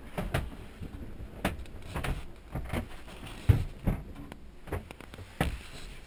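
Scattered, irregular knocks and clunks inside a small sailboat's cabin, about eight in all, the sharpest about three and a half seconds in, over a faint low background with the wind muffled.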